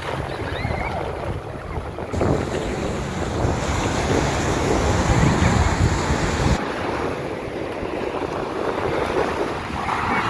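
Sea waves breaking and washing up the beach, with wind rumbling on the microphone. A louder surge builds from about two seconds in and falls away about two-thirds of the way through.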